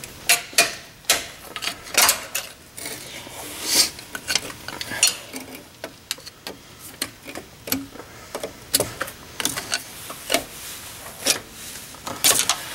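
Irregular metallic clicks, clinks and light scrapes as a thin wire clip is worked off a front disc brake caliper, partly with a screwdriver.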